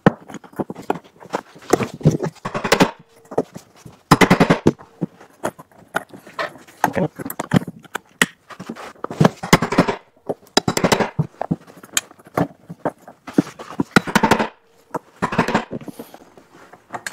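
Hammer striking an alligator belt-lacing setting tool, driving RS125 steel staples into the end of a conveyor belt. It is a series of sharp metallic blows, each with a short ring, coming in irregular clusters with brief pauses between them.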